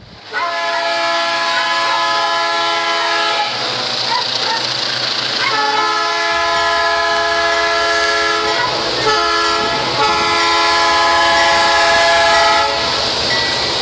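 Diesel locomotive air horn, a steady multi-note chord, blown in four blasts: long, long, short, long. This is the standard grade-crossing signal, from the lead GM G26CU of an approaching freight train. The locomotive's engine and wheel rumble come in underneath from about halfway.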